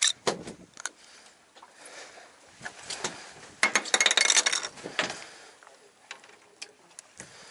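Metallic clinks and knocks of fishing tackle being handled on a boat, with a loud, dense rattle of rapid clicks about three and a half seconds in that lasts about a second.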